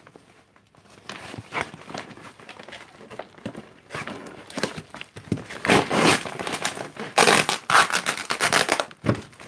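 Packing material being handled and pulled out of an opened parcel box: irregular crinkling rustles and small clicks, sparse at first and much louder and busier from about four seconds in.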